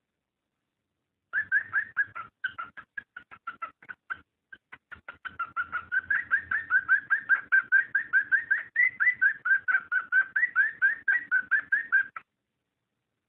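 Cockatiel breeding call: a rapid run of short chirps, each rising in pitch, about five a second. It starts a little over a second in, breaks off briefly near the four-second mark, then carries on and stops about a second before the end.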